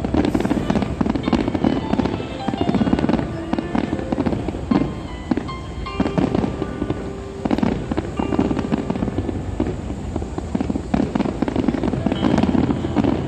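Fireworks bursting in rapid succession, many bangs a second, with music playing along.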